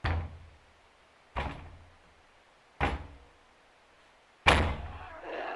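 Heavy pounding on a door: four slow, heavy thuds about a second and a half apart, the last one the loudest. A rough, swelling noise starts just before the end.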